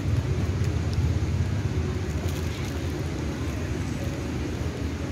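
Steady low rumble of outdoor background noise, with a few faint clicks around the middle.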